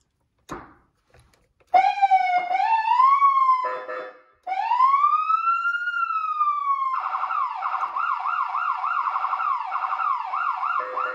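Galls StreetThunder electronic siren sounding through its speaker after a switch click: a rising sweep, a short horn blast, one slow wail up and down, then a fast repeating yelp with another short horn blast near the end.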